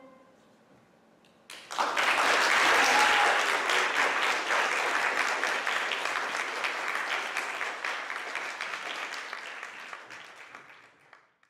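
Audience applauding, starting suddenly about two seconds in after a short hush, then slowly dying away near the end.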